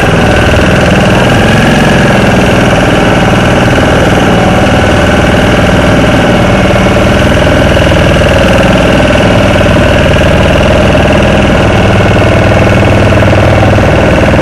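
A motor running steadily at an unchanging speed.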